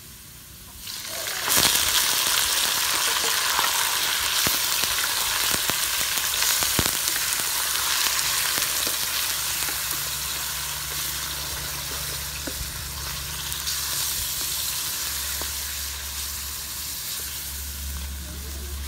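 Raw chicken pieces hitting hot oil and minced ginger in a steel wok: a loud sizzle starts suddenly about a second and a half in and slowly eases as the meat cooks. A wooden spatula scrapes and stirs against the wok, giving light clicks.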